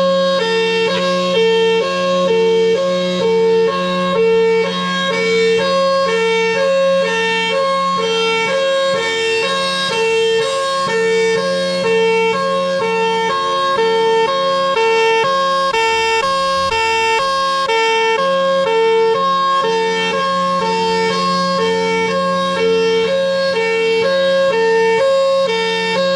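Federal Signal Thunderbolt 1003 outdoor warning siren sounding its hi-lo signal, switching back and forth between a high and a low tone several times a second, with a steady low hum underneath.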